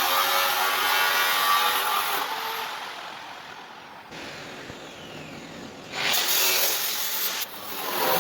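Power tool working on the bus's bodywork with a high-pitched whine. About two seconds in it is switched off and winds down with a slowly falling whine. It starts up again about six seconds in, stops briefly, and runs again near the end.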